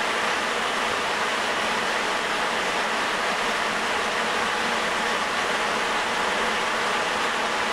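Sapporo Municipal Subway Type 9000 train (Hitachi IGBT-VVVF) running between stations: a steady rushing noise of its rubber tyres on the concrete guideway, level and unchanging throughout.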